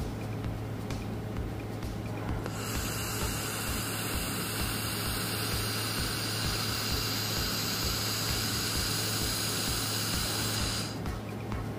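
Handheld laser welder firing on thin sheet metal: a steady hiss of the weld and its shielding gas starts about two and a half seconds in and cuts off near the end. A steady low hum runs underneath.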